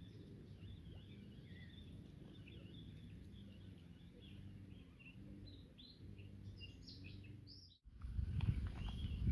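Birds chirping at intervals over a low, steady hum. About eight seconds in, the sound cuts abruptly to louder outdoor noise with knocks and rustling.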